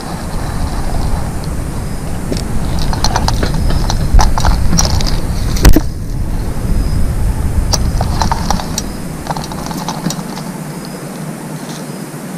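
Spincast reel on a homemade fish slingshot being cranked, its gears clicking and whirring as the line is wound in, with one sharp snap a little before halfway through.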